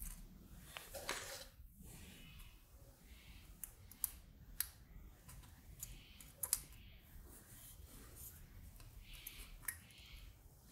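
Capacitor wire leads being pushed through the holes of a printed circuit board and handled on the back, giving faint scattered clicks and ticks with soft rustling as the board is moved on the mat.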